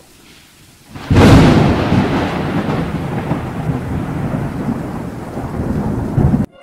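A thunderclap breaking about a second in, then steady heavy rain with rumbling thunder. It cuts off abruptly near the end.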